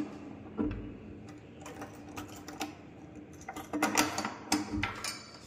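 A steel barrel bolt on a wooden door being slid shut and padlocked: a series of sharp metal clacks and rattles, busiest about four seconds in.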